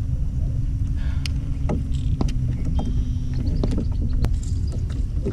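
Wind rumbling on the microphone of a kayak-mounted camera, with a steady low hum that fades near the end and scattered sharp clicks and knocks while a bass is reeled in and landed over the side of the kayak.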